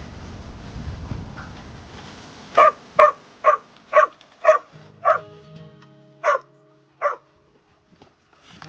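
A dog barking eight times in short, loud barks, the first six in a quick run of about two a second, then two more spaced further apart.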